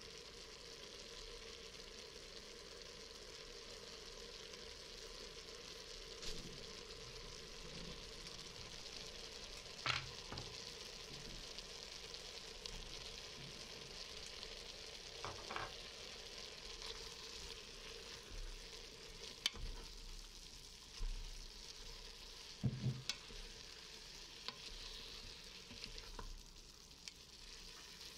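Shredded carrots, onions and dried apricots sizzling steadily in the stainless-steel inner pot of an Instant Pot, with a few sharp clicks and knocks of a knife and utensils against the pot.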